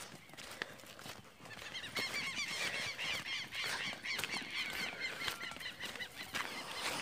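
Birds chattering in many quick, high calls for a few seconds, over scattered footsteps and hoof knocks on a stony dirt track.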